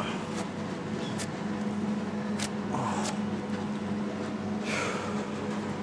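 Paper wax strip being smoothed onto bare skin and pulled off: a few light clicks and a short rustle over a steady low hum.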